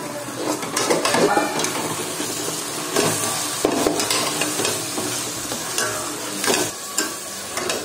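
Steel spatula stirring tomato-onion masala frying in a stainless steel pan: a steady sizzle with irregular scrapes and clinks of metal on the pan.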